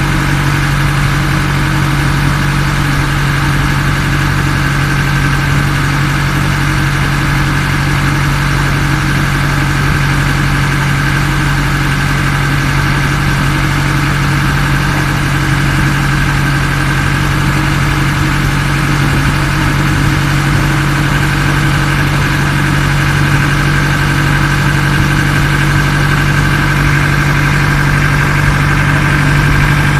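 Ferry boat's engine running steadily with an even low hum, heard from on board.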